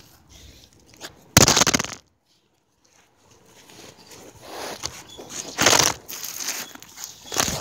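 Camera handling noise: rustling, rubbing and crackling on the microphone while the lens is covered, mixed with crunching steps. A loud scraping burst comes about a second and a half in and breaks off into a second of dead silence where the recording cuts. The rustling then builds again, with two louder scrapes near the end.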